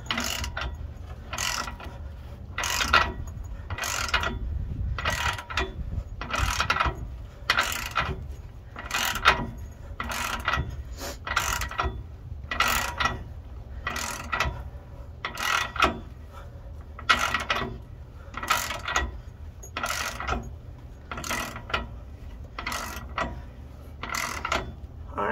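Ratchet wrench worked back and forth on the forcing screw of a bushing press tool, drawing a rubber pivot bushing into a Meritor suspension arm. Each return stroke gives a short burst of ratchet clicks, about one and a half a second, in an even rhythm.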